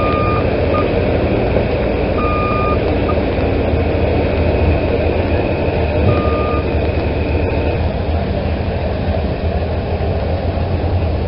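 Heavy vehicle engines running steadily while a backup alarm sounds a few separate beeps. This is a truck or loader reversing while clearing the track.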